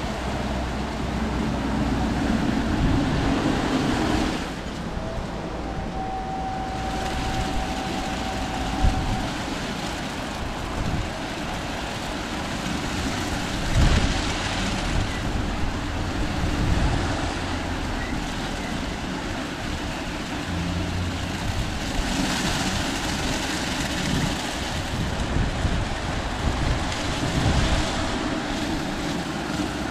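Aquarama Stargate S10 rollover car wash running over a car: a steady mix of machine motor noise and wash noise, shifting a little as the gantry works, with a brief thin whine about six seconds in.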